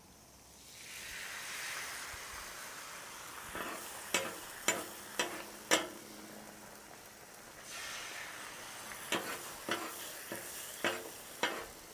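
Beaten eggs sizzling on a hot steel Blackstone flat-top griddle as they are poured on, cooking on residual heat. A metal spatula scrapes and clicks sharply on the griddle surface in two spells as the eggs are pushed together.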